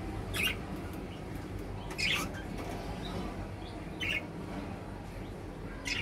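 Budgerigars in a cage giving short, sharp chirps, four brief calls about two seconds apart, over a steady low hum.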